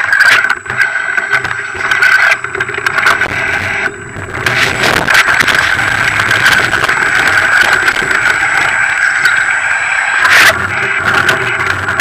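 Mountain bike riding down a rocky trail: its knobby tyres crunch over loose stones and the bike rattles and knocks on the bumps, over a steady buzz, with one hard knock near the end.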